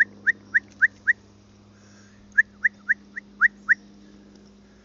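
A squirrel calling in two quick runs of short, rising, chirping barks, about three or four a second: a run of about eight, a pause, then about six more. This is the alarm scolding of a squirrel watching from up a tree. A faint steady low hum lies underneath.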